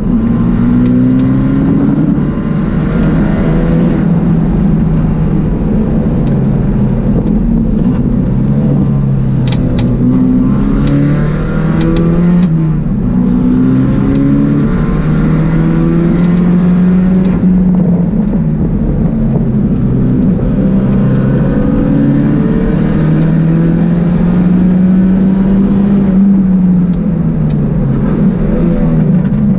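Pontiac Solstice race car's four-cylinder engine heard from inside the cabin at racing pace, its pitch climbing through the revs and dropping sharply at each gear change, then sagging and rising again through the corners. A few sharp clicks sound around ten to twelve seconds in.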